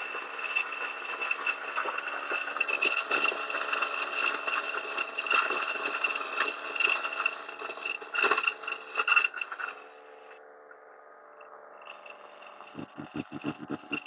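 DF64E flat-burr coffee grinder grinding a single dose of espresso beans: a steady motor whine under the rasping crackle of beans in the burrs. The crackle stops about ten seconds in as the dose runs through, and the motor keeps running more quietly. Near the end comes a quick run of low thumps, about five a second.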